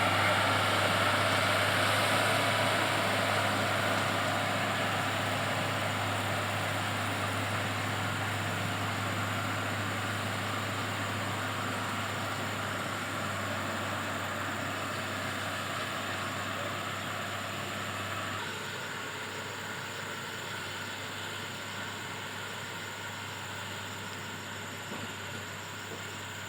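Komatsu GD511A motor grader's diesel engine running steadily, slowly growing quieter, with a drop in its mid-range sound about two-thirds of the way through.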